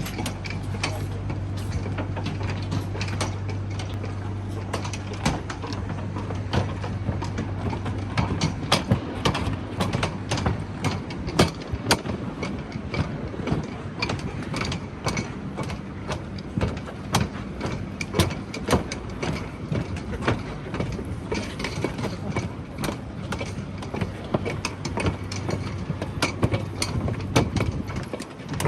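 Busy city street ambience: a steady low engine hum for the first several seconds, then many irregular sharp clicks and taps over a general background noise.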